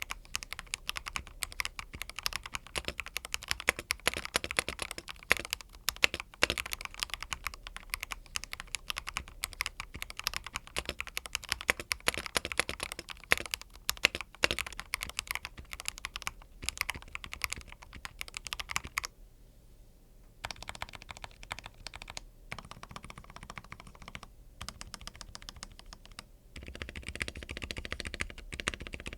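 Typing on a Rakk Hanan mechanical keyboard with Akko CS Crystal linear switches and stock PBT keycaps: a fast, steady stream of key clacks that pauses briefly about two-thirds of the way in, then resumes more sparsely before picking up again near the end.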